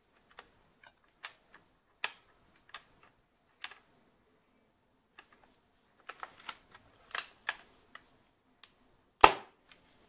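Spring-powered Snow Wolf Kar 98k airsoft rifle being handled: a series of light clicks from the safety lever and bolt, then a quick run of clicks and scrapes as the bolt is worked to cock the spring. About nine seconds in comes one loud, sharp snap as the trigger releases the spring piston.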